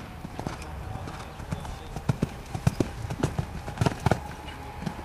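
Hoofbeats of a horse cantering on a sand arena in an uneven run of dull strikes, the loudest as it reaches and takes a jump about four seconds in.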